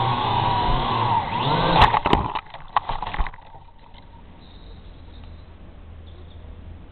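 Syma X8G quadcopter's motors and propellers whining, the pitch wavering. About two seconds in comes a burst of sharp cracks and clatter as the drone crashes into the branches of a conifer. The motors cut out about three seconds in.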